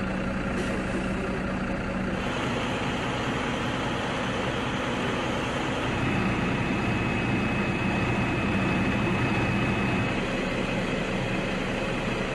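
Bus engine running, heard from inside the passenger cabin as a steady rumble and noise, with a faint steady high whine in the middle.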